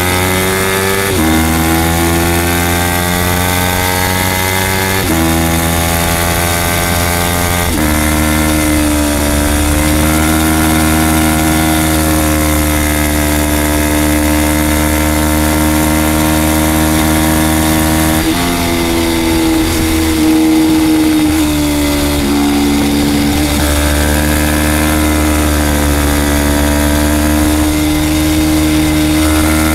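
Small-displacement race sportbike engine at full throttle, heard from on board with wind rush: the revs climb and snap down with quick upshifts about 1, 5 and 8 seconds in, then hold high and steady. From about 18 to 23 seconds the revs fall in uneven steps under braking and downshifts before the engine pulls steadily again.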